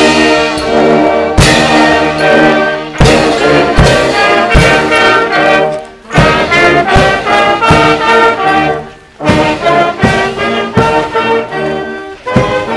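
Fire brigade brass band of trumpets and trombones playing a march-like tune in the street, with a strong accented beat about every second and a half and short breaks between phrases.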